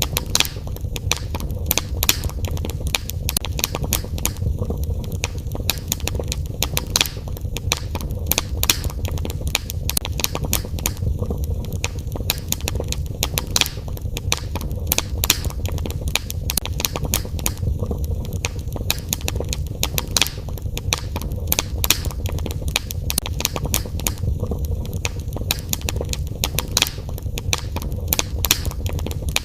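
Wood fire in a fireplace crackling, with frequent irregular sharp pops over a steady low rumble of the flames.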